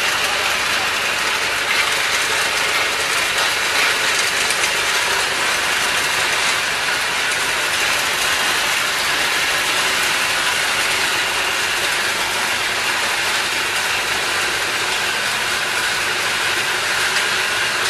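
Motorized palm-nut cracker running under load: nuts clattering through the crusher and its rotating perforated sieve drum in a dense, steady rattle, with a faint motor hum underneath.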